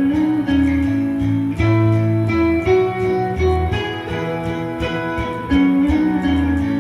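Background music led by guitar, with a steady bass line and beat.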